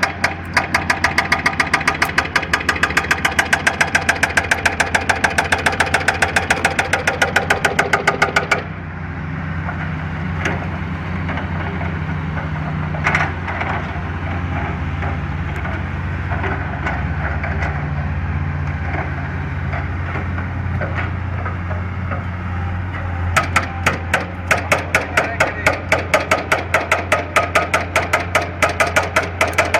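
A power tool hammering in rapid, even blows, about nine a second, for the first eight seconds or so and again from near the end of the middle stretch onward. A steady engine drone runs underneath throughout and is heard alone in between.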